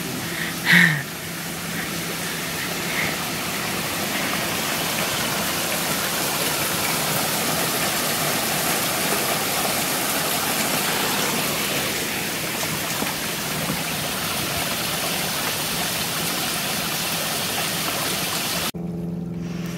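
Small forest creek flowing over stones and fallen logs, a steady rush of water that cuts off abruptly near the end.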